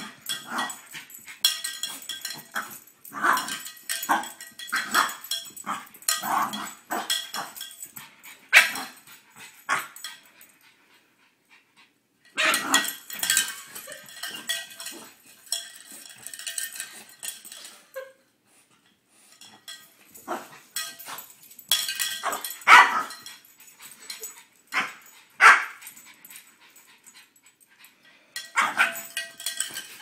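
French bulldog barking and growling in excited bursts with short pauses between them, while a small cowbell clanks as he bites and paws at it.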